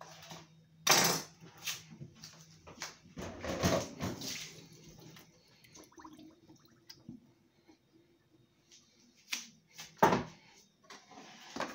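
Kitchen tap water running and splashing as a wooden chopping board is rinsed in a stainless steel sink, with knocks and clatters of the board and kitchen things. There is a sharp knock about a second in and another near the end.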